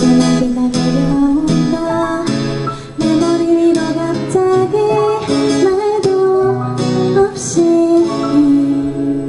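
Live band playing a pop ballad: acoustic guitar strumming over electric bass, keyboards and drums, with a female lead vocal.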